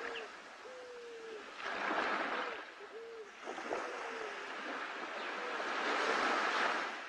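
Surf washing in around a leatherback sea turtle at the water's edge: two swells of rushing water, one about two seconds in and a bigger one near the end, falling back between them. Short faint hums repeat underneath.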